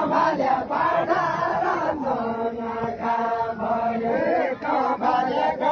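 A large group of village men singing a chanted folk song together, many voices overlapping in a continuous chant.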